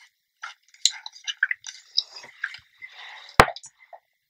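Hair rustling and small handling clicks as a GHD Original hair straightener is clamped on a section of short hair and twisted through it to make a curl. There is a sharp click about three and a half seconds in.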